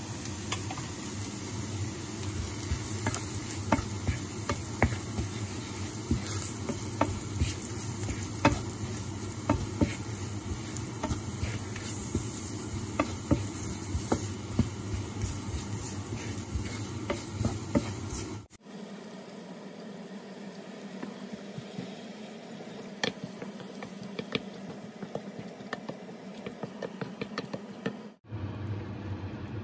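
Wooden spoon stirring flour into sizzling sliced mushrooms in a hot non-stick frying pan, with frequent irregular light knocks and scrapes of the spoon on the pan. After an abrupt cut, quieter stirring of the creamy mushroom sauce in the same pan.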